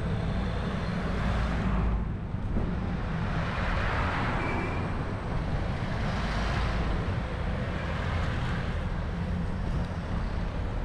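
Street traffic: a steady low rumble with vehicles passing one after another, each swelling and fading over a second or two.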